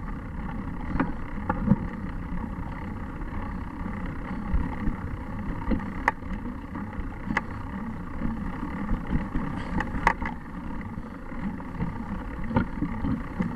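Bicycle riding over a leaf-strewn dirt trail: a steady rumble of tyres on ground and leaves, broken by scattered sharp clicks and knocks from the bike over the rough ground.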